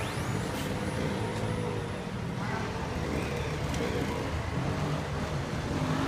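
City transit bus driving off along the street, its engine running steadily with road traffic noise around it.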